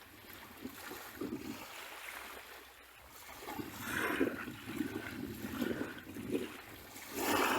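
Sea waves washing on a beach: a lull for the first few seconds, then water lapping and swirling in repeated surges. A bigger wave breaks near the end.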